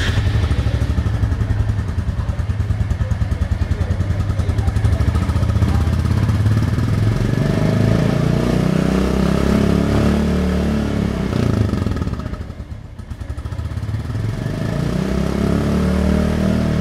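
Royal Enfield Classic 350 BS6 single-cylinder engine idling with a steady pulsing exhaust note, then revved twice: the engine speed climbs from about six seconds in, drops back just after twelve seconds, and climbs again near the end.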